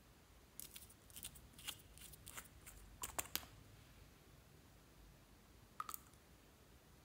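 Faint, scattered clicks and small crackles of clear slime being pressed and worked by hand: a run of them in the first half, then a brief pair near six seconds.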